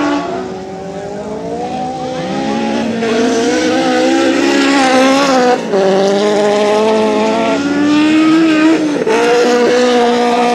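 Engines of lowered VW Beetle-bodied autocross racers revving hard on a dirt track, their pitch climbing and dropping again and again as they accelerate and change gear.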